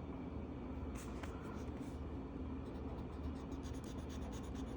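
Marker tip rubbing on paper in quick repeated strokes as a colouring page is filled in, the strokes getting busier after about two seconds, over a low steady hum.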